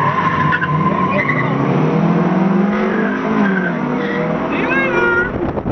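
Cars launching hard from a stop, the engine note rising in pitch as they pull away, with high tire squeals, the strongest near the end.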